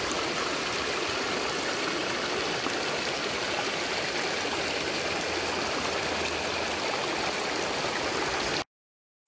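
Shallow mountain stream splashing and rushing over rocks in a steady flow, cutting off suddenly near the end.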